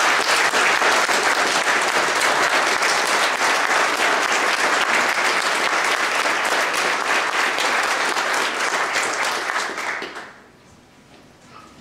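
Audience applauding: many people clapping together, dying away about ten seconds in.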